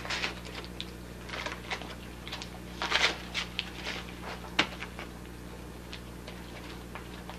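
Torn foil wrapping paper crinkling and rustling as a dog noses and chews through the scraps: scattered short crackles, the loudest about three seconds in, and a sharp click a second and a half later, over a steady low hum.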